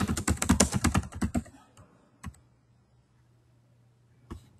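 Typing on a computer keyboard: a quick run of keystrokes for about a second and a half, one more keystroke shortly after, then a pause before a couple more near the end.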